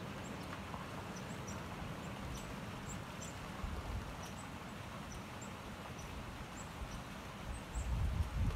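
Small birds giving short high chirps, about one or two a second, over the steady rushing of a partly frozen stream. A low rumble comes in near the end.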